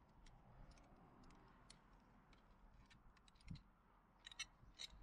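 Faint, scattered light clicks and ticks of an Allen key and the metal handguard hardware being handled at a motorcycle's handlebar end, with a soft thump about three and a half seconds in and a quick run of clicks near the end.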